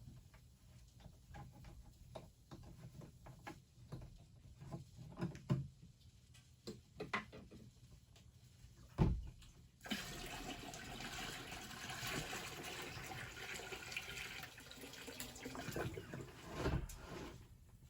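Light clicks and knocks of handling, then about ten seconds in, water pouring steadily into a container for about seven seconds before stopping: shower water being readied.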